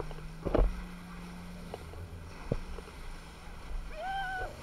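Banana boat towed fast over the sea: a steady low hum under wind and water noise, with a couple of short knocks and a brief held shout from a rider near the end.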